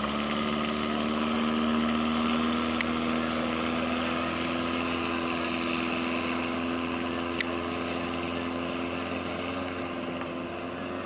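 Long-tail boat's open stern-mounted engine running steadily at speed, its pitch climbing slightly over the first couple of seconds and then holding, over the hiss of the boat's wake. Level eases a little near the end. Two brief clicks come about three and seven and a half seconds in.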